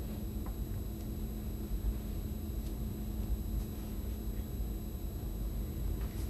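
Steady low rumble of a room's background noise, with a thin high whine above it; no speech.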